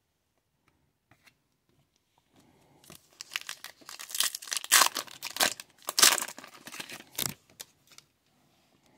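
Hands tearing open the wrapper of an Upper Deck hockey card pack and crinkling it. The tearing starts about two and a half seconds in and goes on for about five seconds.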